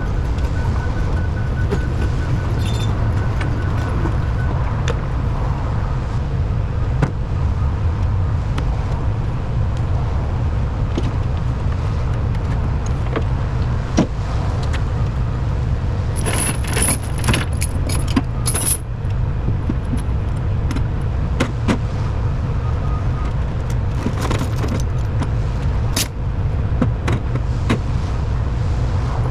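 Truck engine idling with a steady low rumble, while loose metal hardware clinks and jingles now and then, most of all in a cluster of rattles about sixteen to nineteen seconds in and again at the very end.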